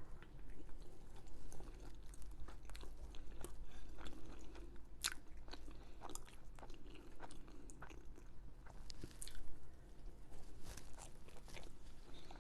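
A person chewing and biting food close to the microphone: moist mouth clicks throughout, with a few sharper crunchy bites about five seconds in and again around nine seconds.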